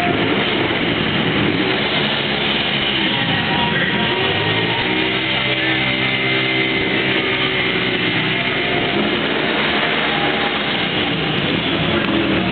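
A motorcycle engine revving up and down during an arena riding demonstration, mixed with loud music playing over the hall's speakers.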